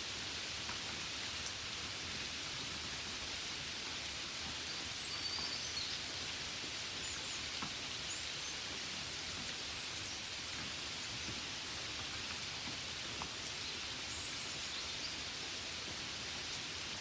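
Gentle steady rain falling on a window, an even hiss with occasional faint drop taps. Faint short high chirps come through about five seconds in and again near the end.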